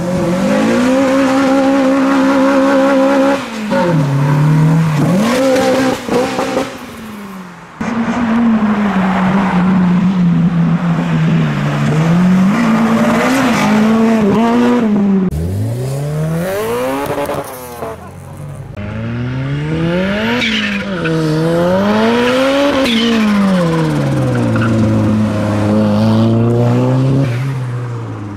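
Honda Civic engines revving and accelerating hard in a series of separate pull-aways. The engine note climbs steeply and drops back several times as the cars change gear, with a steady held rev near the start.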